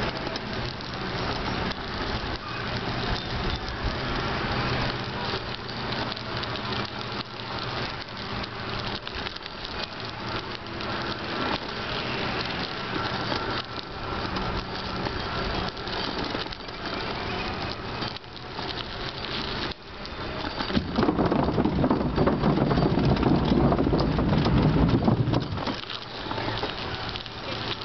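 Bicycle tyres rolling over a crushed-stone path: a steady gritty crackle with rattling from the bike. A louder low rumble lasts about four seconds near the end.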